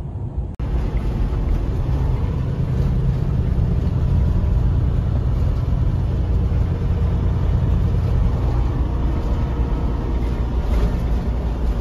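Steady low rumble of a semi truck driving at road speed, engine and tyre noise heard from inside the cab. The sound changes abruptly about half a second in.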